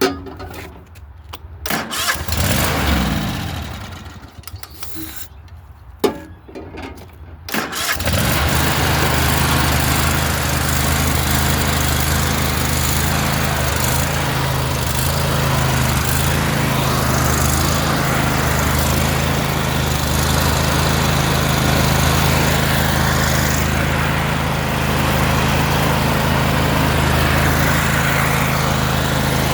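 Kohler Courage 25 V-twin engine on a Cub Cadet riding mower, with scattered knocks and a brief attempt at starting, then catching about eight seconds in and running steadily. It starts now that the new fuel pump is drawing fuel up into the filter.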